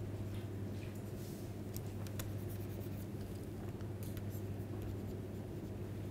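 Stylus scratching and tapping faintly on a pen tablet as a word is handwritten, in short irregular strokes, over a steady low electrical hum.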